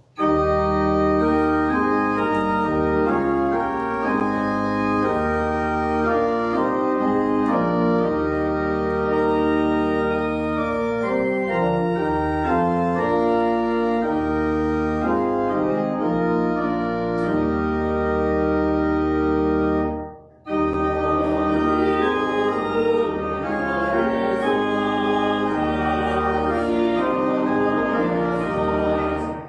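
Church organ playing sustained full chords over a deep pedal bass. It stops briefly about twenty seconds in, then starts again.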